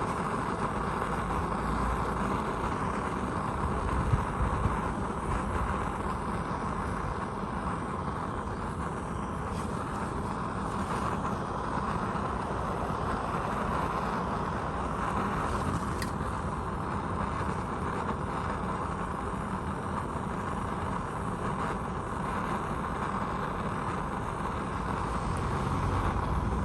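A steady machine hiss with a low rumble and a faint steady hum, unbroken throughout, with a single sharp click about sixteen seconds in.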